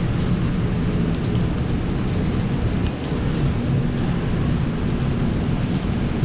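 Steady rain falling, with scattered drop ticks over a constant low rumble.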